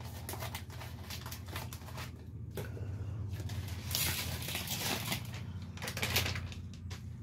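Crinkling and rustling of a paper soup-mix packet as dry Lipton onion soup mix is shaken out onto ground beef, in quick irregular crackles that are loudest about four seconds in, over a low steady hum.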